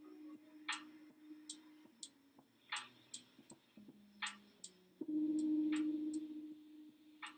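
Quiet, sparse background track: a low held tone that comes in sharply about five seconds in and slowly fades, with light irregular ticks throughout.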